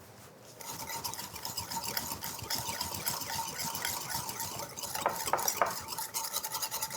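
A wire whisk beating a brown sugar, soy sauce and chipotle glaze in a bowl: a fast, steady scraping clatter that starts about half a second in.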